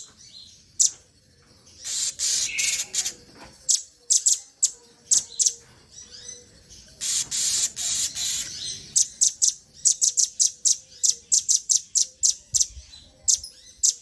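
Small songbirds calling on a bird-song training recording: runs of short, sharp, high chips fired off quickly, broken by pauses, with two longer buzzing trills about two and seven seconds in.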